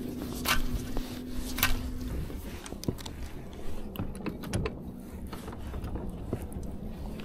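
A baitcasting reel being cast and cranked, its gears whirring as the lure is reeled back in. There are a few sharp clicks, the loudest about half a second and a second and a half in.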